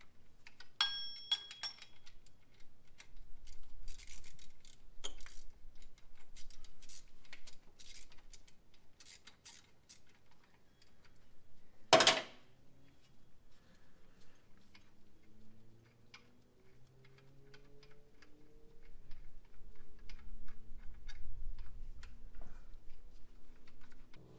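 Hand tools clicking, clinking and knocking against metal engine parts during engine teardown, with a ringing metallic clink about a second in and one sharp, loud knock near the middle.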